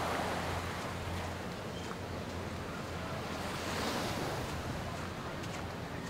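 Ocean waves breaking and washing up a sandy beach, the surf surging twice, the second time about four seconds in.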